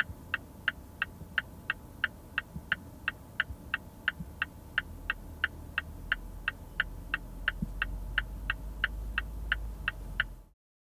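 Mazda CX-5 turn-signal indicator tone heard inside the cabin: an even run of short, crisp ticks, about three a second, over a low rumble that grows louder about halfway through. It cuts off suddenly near the end.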